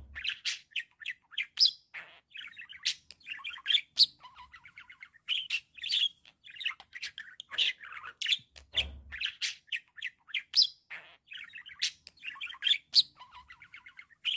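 Male budgerigar warbling: a continuous stream of quick chirps, clicks and chattering notes with a few sharp, high squeaks.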